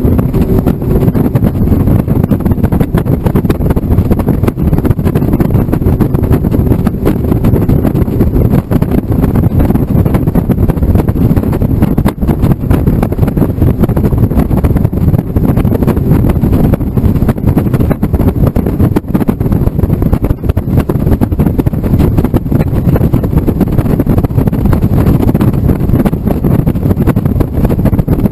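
Steady wind buffeting on the microphone and road noise in an open-top Honda S2000 roadster at highway speed, with the four-cylinder engine's hum faintly underneath.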